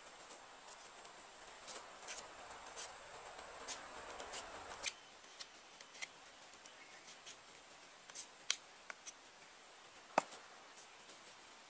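A small wooden stick being shaved and scraped with a knife by hand: a run of short, sharp scraping strokes, with a softer rasping spell a few seconds in and a single louder knock near the end.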